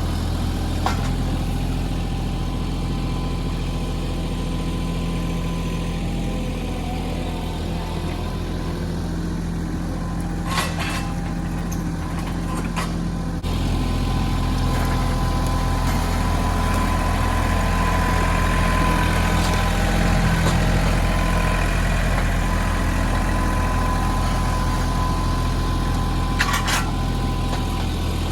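Mahindra 1626 compact tractor's diesel engine running steadily while the backhoe is worked, with a couple of short sharp knocks. The engine sound gets suddenly louder about halfway through.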